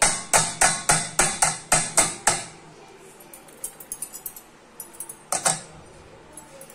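A spoon working blended tomato soup through a stainless-steel mesh strainer sitting on a steel pot: a quick run of about nine sharp strokes, roughly four a second, then a few light ticks and one more stroke near the end.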